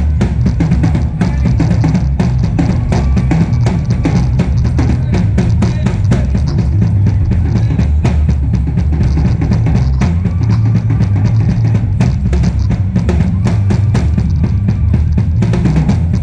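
Marching band playing, its drums loudest: a dense, continuous drum beat of snare and bass drum strokes over a steady low bass.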